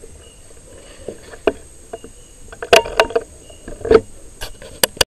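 Air rifle shot at a flying fox roosting in a tree canopy: a cluster of sharp cracks and knocks from about two and a half seconds in, the loudest at its start, with leaves rustling and a few more snaps near the end as the hit bat falls through the branches.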